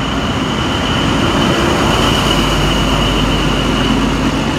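XPT diesel passenger train pulling out of the station past the platform: carriages rolling by, then the rear diesel power car coming alongside, with a steady rumble and a steady high-pitched whine over it.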